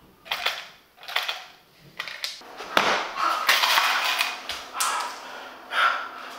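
Irregular rustling and light clattering from small objects being handled, in short bursts throughout.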